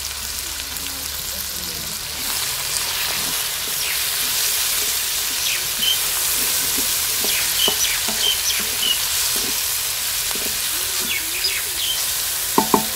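Tomatoes, green chillies and onions sizzling in hot oil in a metal karahi, stirred with a wooden spatula that scrapes through the masala; the sizzle grows louder about two seconds in, and the spatula knocks twice against the pan near the end.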